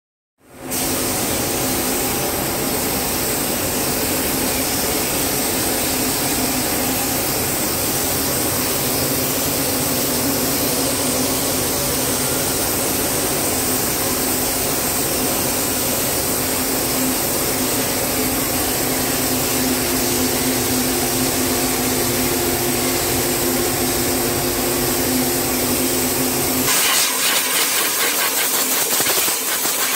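Steady hiss of a compressed-air spray gun laying down chemical metallization (mirror chrome) solution, over the hum of the paint booth's extraction fan. Near the end it changes abruptly to a thinner, sharper hiss of an air blow gun over the chromed part.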